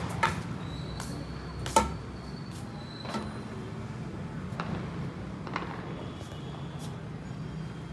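A few short sharp taps, the loudest about two seconds in, over a steady low hum.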